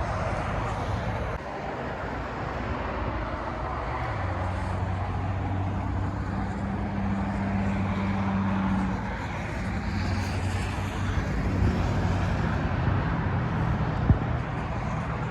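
Cherry picker's engine running steadily, its hum growing stronger about four seconds in, with a couple of light knocks near the end.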